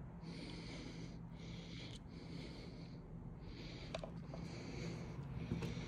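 Quiet room tone: a low steady hum, with faint rustling and a couple of small clicks about four seconds in.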